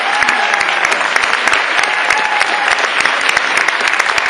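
Audience applauding: dense, steady clapping from many hands, with a few voices faintly mixed in.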